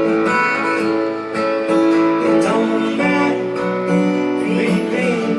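Acoustic guitar playing between the vocal lines of a soft song: strummed chords with ringing, sustained notes.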